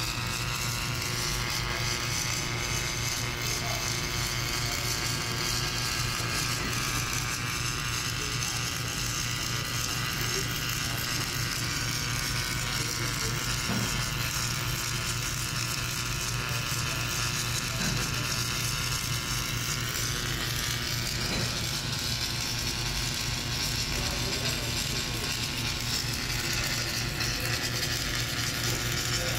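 Automatic submerged arc welding machine running a weld under flux: a steady electrical hum with a whir from the carriage and wire feed, and a few faint ticks.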